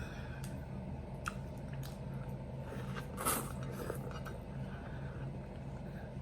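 Juicy watermelon being bitten and chewed, with wet, squishy mouth sounds and a louder wet bite or slurp about three seconds in, over a steady low hum.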